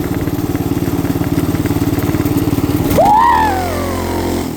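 Small 212cc single-cylinder engine on a ride-on bike running steadily, then revving up hard about three seconds in, the pitch swinging up and sliding back down as it pulls away under load.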